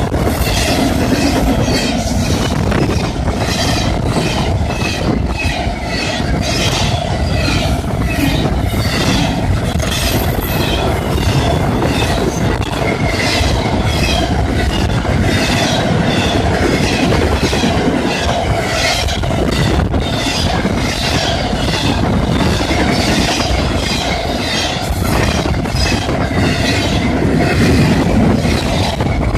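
CSX double-stack container freight train rolling past at a steady pace, its wheels clacking over the rail joints in a continuous rumble. A grade-crossing bell rings in an even, repeating rhythm.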